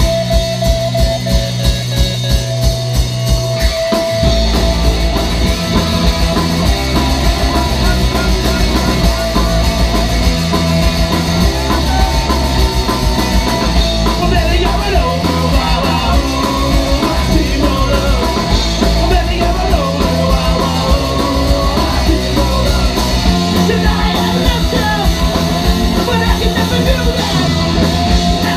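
Punk rock band playing live with drum kit, distorted electric guitars and bass: a steady pulsing beat over a held bass note, with the full band crashing in about four seconds in.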